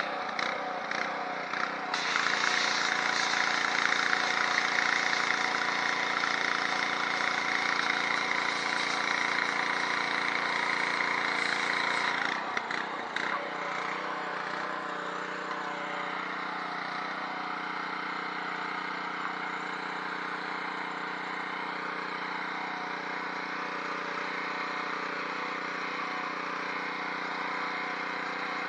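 Gas-engine pressure washer running steadily, its small engine humming under the loud hiss of the high-pressure spray. About twelve seconds in the spray hiss drops away and the engine runs on alone.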